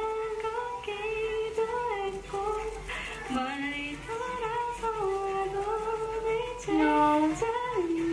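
A young woman singing into a microphone, holding long melodic notes and sliding between them.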